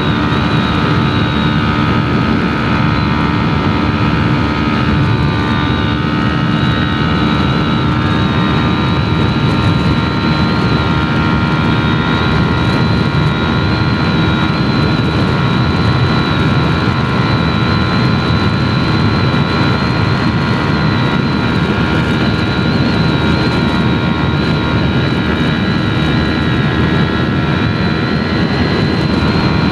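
Yamaha R3's parallel-twin engine running through an aftermarket Arashi exhaust, heard on board while riding at a fairly steady engine speed. The exhaust note is continuous, with no big revs or gear-change gaps.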